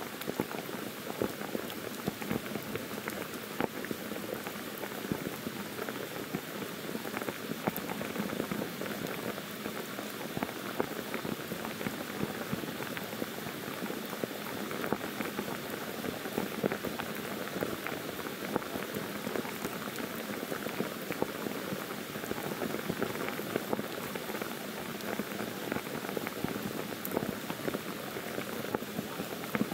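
Steady heavy monsoon rain falling on forest trees: an even hiss of countless raindrops, dotted with many small, sharp drop taps.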